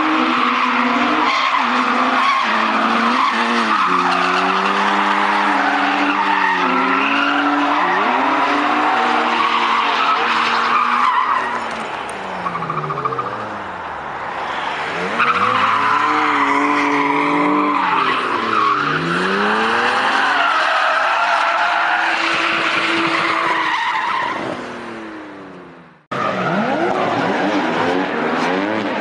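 BMW 3 Series drift cars sliding with engines revving up and down hard and tyres squealing, several engine notes rising and falling over one another. The sound fades away and cuts off about 26 seconds in, then another car's engine and tyre screech start up.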